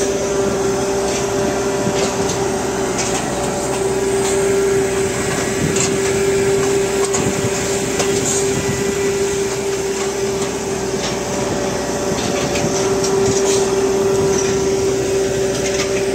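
Conductor tensioner machine running during stringing: a steady whine over constant engine and hydraulic machine noise, with a few light clicks here and there.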